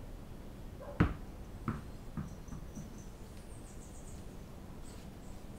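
Tennis ball hitting a hard terrazzo floor and bouncing about five times, each bounce softer and quicker than the last as it settles.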